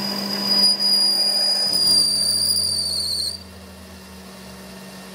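Metal lathe turning a metal workpiece: a loud, steady high-pitched squeal from the tool cutting, wavering near its end, over the lathe's steady motor hum. A little over three seconds in the squeal stops abruptly, leaving the quieter hum of the lathe running and cutting.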